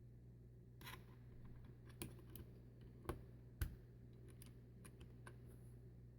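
Irregular sharp plastic clicks from a mechanical keyboard's switches being handled, about a dozen in all, with a short scrape about a second in and the loudest click about three and a half seconds in.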